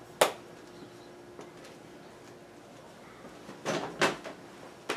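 A short knock just after the start, then two louder scuffing or sliding noises about four seconds in and a click near the end: someone moving about and handling things in a small room.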